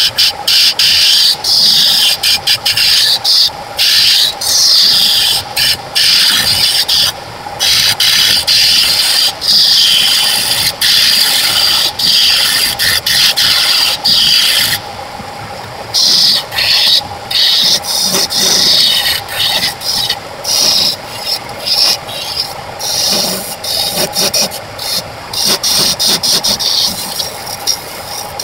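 Wood lathe spinning a segmented glued wooden blank while it is worked in repeated scraping passes. Each pass is a loud hiss that stops briefly when the work is lifted off. The lathe's steady hum carries on through the breaks, including a longer pause about halfway through.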